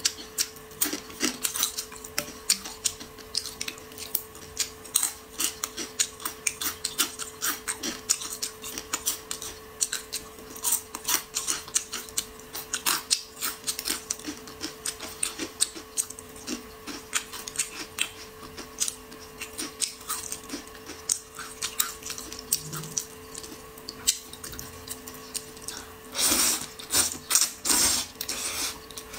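Close-miked eating of noodles: a run of small wet clicks from chewing and chopsticks working through the bowl, then a loud slurp of noodles about two seconds long near the end. A faint steady hum lies under it.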